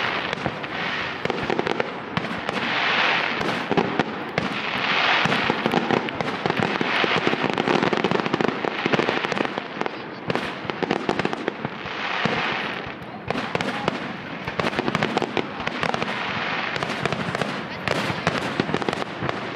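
Fireworks display: a dense, continuous run of rapid bangs and crackles, with louder swells of crackling every two seconds or so.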